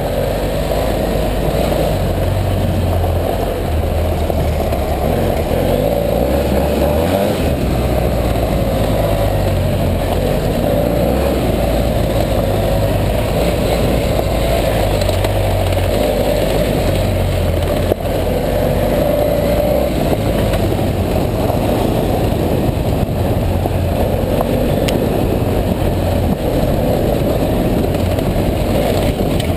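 BMW F 800 GS parallel-twin engine running steadily under way on a gravel track, with a broad rush of wind and tyre noise over it.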